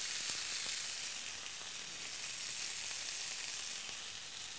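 Chicken pieces sizzling steadily on a hot grill pan as papaya glaze is brushed onto them, a continuous high hiss.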